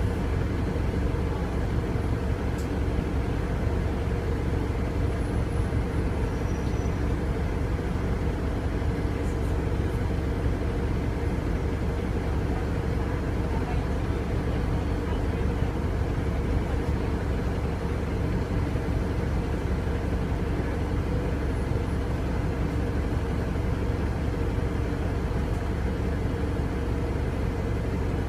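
Alexander Dennis Enviro 200 MMC bus's diesel engine idling steadily at a constant pitch, a deep low hum as heard inside the passenger saloon.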